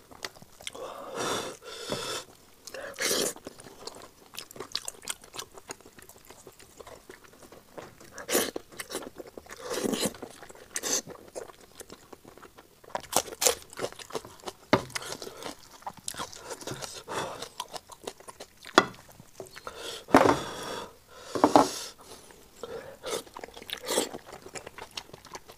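Close-miked mouth sounds of eating spicy sheep's head meat by hand: chewing, wet smacking and sucking, broken by sharp crunchy bites. Among them is a bite into a raw green onion stalk about twelve seconds in.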